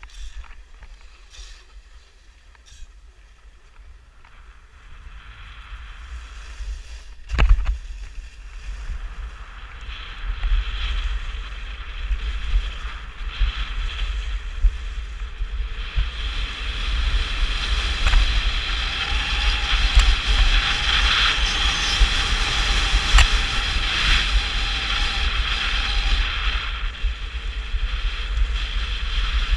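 Skis sliding and scraping over packed groomed snow, with wind rumbling on the microphone; the hiss of the skis grows louder as speed picks up from about six seconds in. A single sharp knock comes about seven seconds in.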